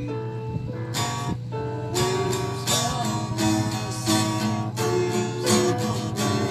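Acoustic guitar played by hand. Held chord notes ring through the first second, then steady strumming starts, about two strums a second, with the chords changing as it goes.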